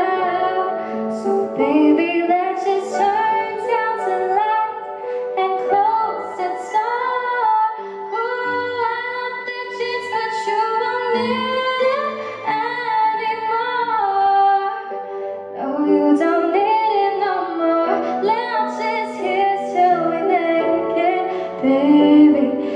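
A woman singing a song live into a microphone, accompanied by keyboard chords and beatboxed percussion.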